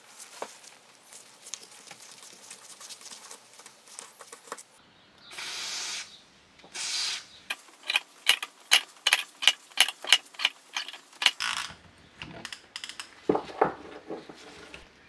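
Hand tools working the crankshaft pulley of a rusty tiller engine. First come light metal clicks, then two short hissing bursts. Next a ratchet handle clicks about three times a second as it turns a two-jaw gear puller's screw to draw the pulley off. Metal parts clank and ring near the end.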